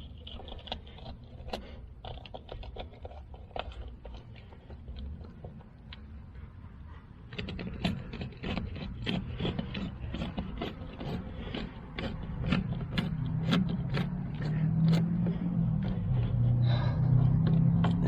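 Metal clicking and scraping from a worm-drive hose clamp being worked and tightened, a cheap clamp that binds as it is tightened. It becomes a quicker run of clicks, about two a second, partway through. A low engine-like rumble builds toward the end.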